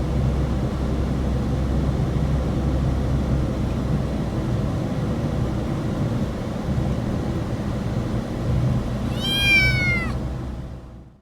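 A kitten gives one loud meow that falls in pitch about nine seconds in, over a steady low rumble of a moving vehicle. The sound cuts off sharply just before the end.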